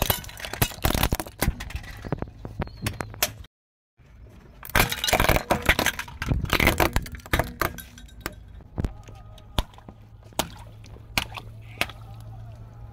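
Plastic toys cracking and snapping under a car tyre as it rolls over them: a dense run of cracks, a short dead gap, a second dense run, then scattered single snaps.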